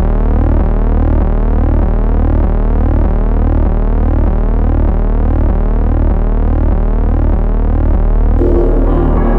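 Opening of an electronic instrumental track: a synthesizer tone sweeping in a repeating pattern about twice a second over a pulsing low bass drone. Near the end, brighter instrumental sounds come in, leading into piano.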